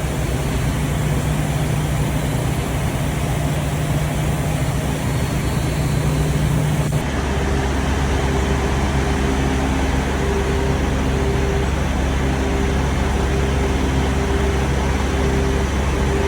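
Semi-truck driving down the road: a steady engine drone with road noise. The sound changes abruptly about seven seconds in, to a deeper drone with a higher hum on top.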